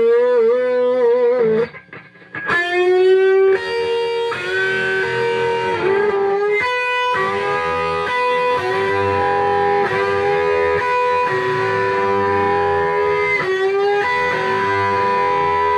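Overdriven electric guitar through a fully cranked 1971 Marshall with EL34 power tubes and a greenback speaker cab, playing sustained bent double-stops with vibrato, with a short break and a rising slide about two seconds in. With the power supply under full load, faint ghost notes move against the bends: a third-harmonic ghost tone drops as the bent dyad rises.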